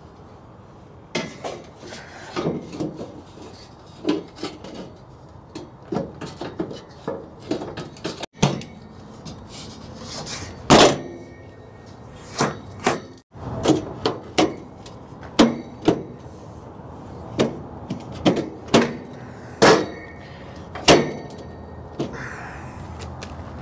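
Irregular knocks, clacks and taps of a louvered cowl vent grille being set down and pressed into place at the base of a 1973 Dodge pickup's windshield, some of them sharp and loud.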